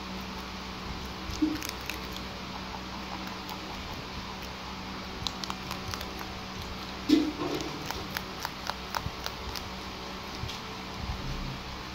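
Rabbits chewing and tearing fresh leafy stems: a run of small crisp clicks and crunches, with a louder crunch or knock about a second and a half in and the loudest about seven seconds in. A steady low hum lies underneath.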